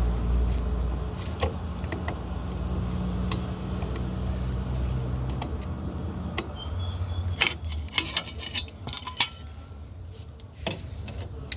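A low vehicle engine rumble fades away over the first several seconds. Then small metal brake parts clink and tap with brief metallic rings as they are handled.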